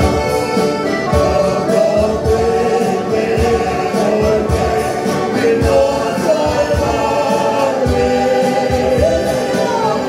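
A small choir singing a Spanish hymn, accompanied by strummed acoustic guitar, accordion and keyboard, with steady rhythmic strumming under the voices.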